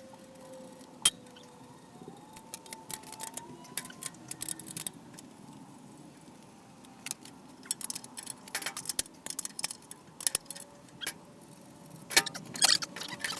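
Irregular metallic clicks, clinks and knocks, the sound of hand tools and metal parts being handled while a bandsaw's table is taken off and the saw lifted from its stand. The clicks come in scattered clusters, busiest about two-thirds of the way through and again near the end.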